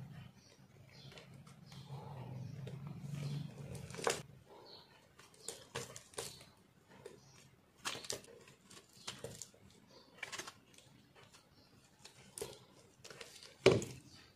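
Crumbly re-molded soap being crushed by hand and shaved with a knife: irregular crunching, crackling and scraping snaps, with one loud crack near the end.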